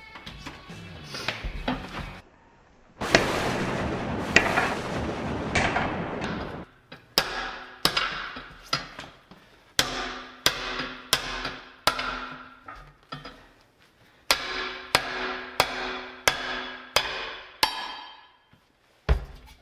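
A rushing noise for a few seconds, then a run of about fifteen sharp blows on the steel-and-aluminium split-rim military wheel, each ringing briefly. The blows come about one and a half a second in two runs with a short pause between, as the rim is knocked loose.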